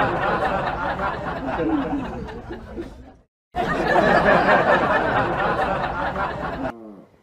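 Group laughter in two long stretches, cut by a short silence about three seconds in, fading out near the end.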